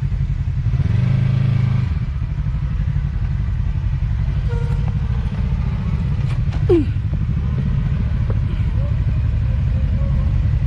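Side-by-side UTV engine running at low throttle while crawling over rocks, with a brief rev about a second in. A short falling squeal comes about two thirds of the way through.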